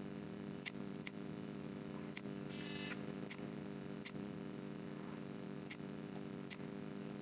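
Computer mouse buttons clicking, about seven faint, sharp clicks at irregular intervals over a steady low hum.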